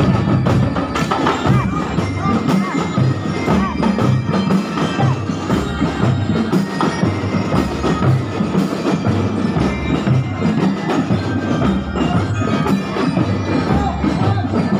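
A drum and lyre corps playing a march: bell lyres ring out a tune over steady, regular drumbeats.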